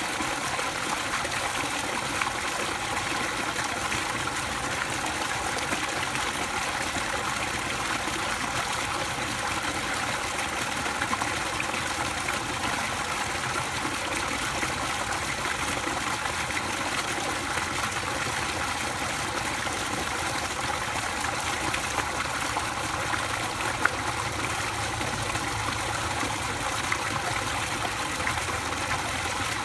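Water pouring from an inflow pipe into a pool, splashing steadily. A short tick stands out about three-quarters of the way through.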